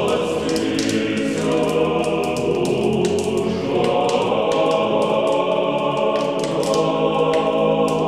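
Choir singing slow, long-held chords, with a change of chord a little before halfway.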